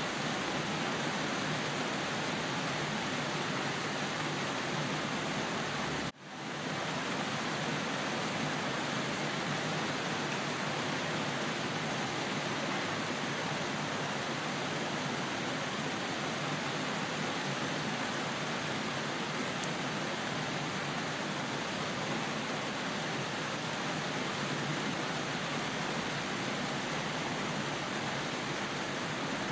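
Steady rain, an even hiss of falling water. About six seconds in it cuts out for a moment and fades back in.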